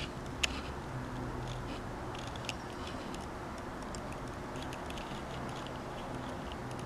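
Faint, scattered clicks and small taps from handling a handheld camera over a steady low hum and room hiss, with one sharper click about half a second in.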